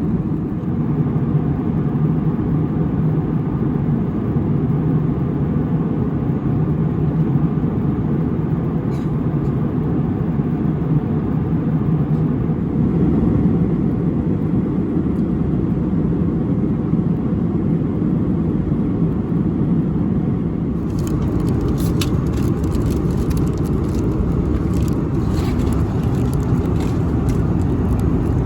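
Steady cabin noise of an Airbus A321-200 in flight, a low, even roar of engine and airflow. About two-thirds of the way through, a crackle of small clicks and rustles joins it.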